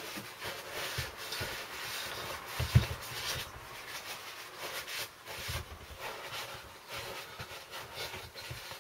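Cloth rag rustling and rubbing as WD-40 is wiped from a freshly honed engine cylinder bore, with a single knock about three seconds in.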